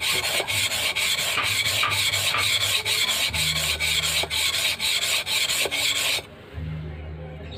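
Golok blade of A88 steel being sharpened on a whetstone: rapid back-and-forth scraping strokes of steel on stone. The strokes stop abruptly about six seconds in.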